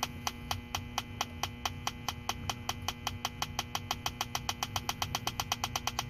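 Electronic refrigerant leak detector ticking steadily, its ticks quickening from about four to about six a second as the probe picks up R410A leaking from an aluminum evaporator coil. A faint steady hum sits underneath.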